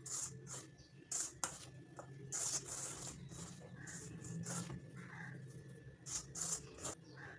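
A hand rubbing and mixing moong dal flour in a stainless steel bowl: soft, irregular swishing and scraping strokes, about a dozen, over a low steady hum.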